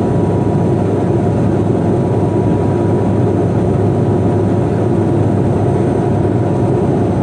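Steady, unchanging cabin noise of an airliner on approach with its landing gear extended: engine noise and air rushing past the lowered gear, with a faint steady tone running through it.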